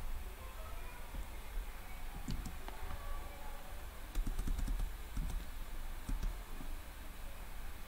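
Typing on a computer keyboard: scattered separate key clicks, with a quicker run of keystrokes about four to five seconds in.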